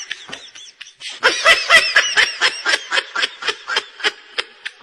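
A person laughing hard in a rapid run of short 'ha' bursts, about four to five a second. It grows louder about a second in and tails off near the end.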